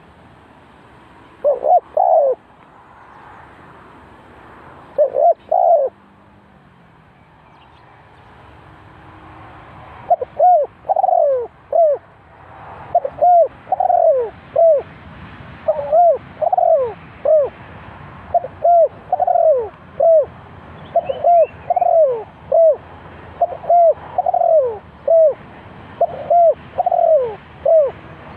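Spotted dove cooing: two short phrases in the first six seconds, then from about ten seconds in a steady run of repeated phrases, each of a few falling coo notes.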